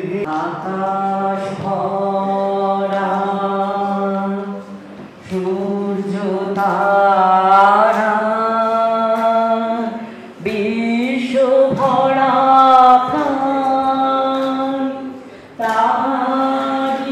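A singing voice holding long, slow notes in phrases of about five seconds each, with short breaks between them. The pitch slides upward partway through the second phrase.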